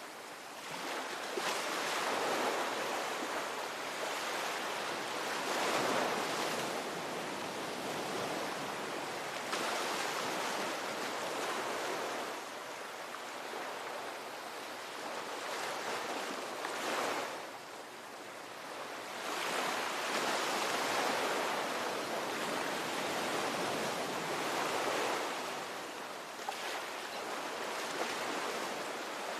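Ocean waves breaking and washing up the shore, the surf swelling and easing every few seconds in a steady rhythm.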